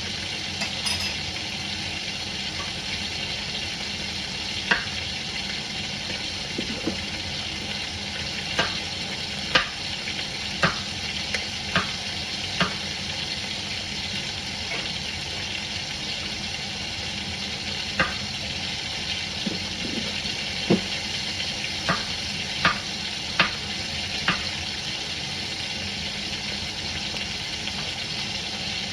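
Chicken legs sizzling as they sear in oil in a Dutch oven, a steady frying hiss. About a dozen sharp knocks come at uneven intervals over it.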